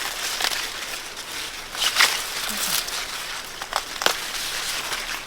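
Dry corn stalks and leaves rustling and crackling as they are handled during the harvest, with a few sharp snaps about two, three and a half, and four seconds in.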